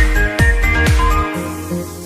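Electronic background music: a deep kick drum about twice a second under a high synth melody, with the bass and beat dropping out about two-thirds of the way through.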